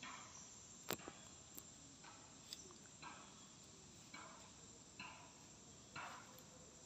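Near silence, with soft short rustles about once a second and one sharp click about a second in, followed by a couple of fainter ticks.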